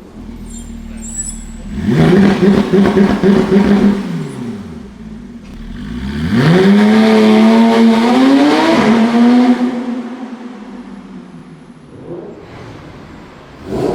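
Supercar engine revving hard twice in a tunnel. The first rev jumps up sharply about two seconds in, holds for a couple of seconds and falls away. The second climbs in pitch about six seconds in, holds with small rises for about three seconds, then dies down.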